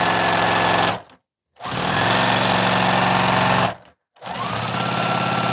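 Juki TL-2010Q sewing machine stitching with a walking foot in three short runs. It runs about a second, stops, runs about two seconds, stops again, then starts once more, speeding up at the start of each run.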